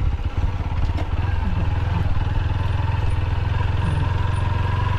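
Motorcycle engine running steadily at low speed as the bike rolls slowly along a dirt trail at about 15 to 20 km/h.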